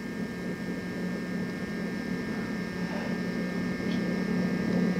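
A steady low hum over a faint hiss, with no distinct event standing out.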